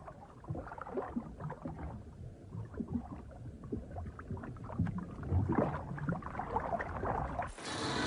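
Water sloshing and bubbling in an irregular, uneven patter, cutting off abruptly near the end.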